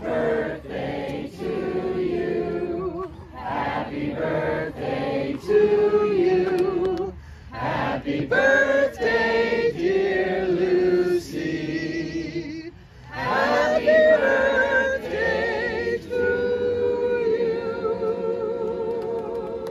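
A crowd singing a song together, led by one man, with a short pause a little past halfway and a long held note at the end.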